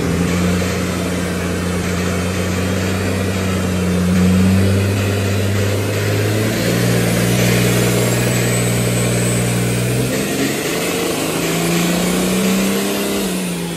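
Compound-turbocharged 5.9 L Cummins diesel in a Dodge Ram pickup running under load on a chassis dyno. The engine note holds steady, drops about six seconds in and again about ten seconds in, then climbs and falls back near the end. A faint rising whistle is heard in the middle.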